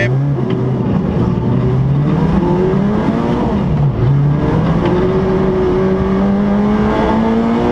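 Honda Civic Type R rally car's four-cylinder engine heard from inside the cabin, accelerating hard from the stage start. The revs climb, drop at an upshift about four seconds in, then climb again, over steady tyre and road noise.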